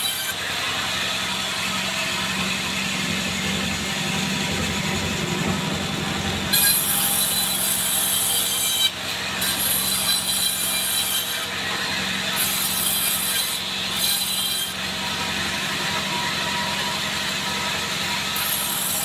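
Band sawmill cutting a log of Bayur wood: a steady motor hum under the hiss of the blade running through the wood. The high cutting hiss drops out briefly a few times.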